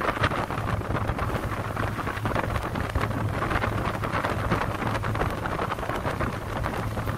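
Wind buffeting the microphone on the open deck of a moving ferry, over the rush of water and a steady low hum from the ferry's engines.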